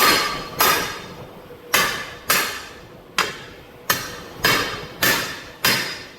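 A big hammer striking a 1948 Ford F600 split-rim wheel and tire, nine heavy blows with a short metallic ring after each, working the tire beads into place on the rim.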